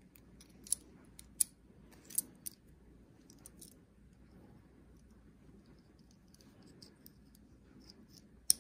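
Sharp metallic clicks of an Atlas sewing machine's metal bobbin and bobbin case being handled and fitted together: four clicks in the first two and a half seconds, a few faint ones a second later, and one sharp click near the end.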